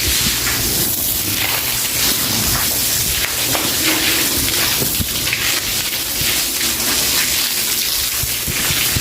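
A broom scrubbing a wet floor: repeated rough bristle strokes over a steady wash of water.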